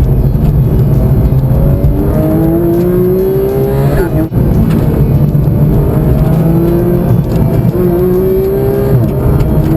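Porsche 991 GT3's naturally aspirated flat-six under hard acceleration. Its note climbs steadily in pitch and falls back sharply at each upshift, about four seconds in and again near the end.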